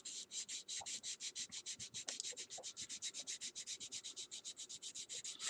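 Coarse sanding stick rubbing quickly back and forth over the plastic of a scale model car body, about seven even strokes a second, sanding off a mould seam.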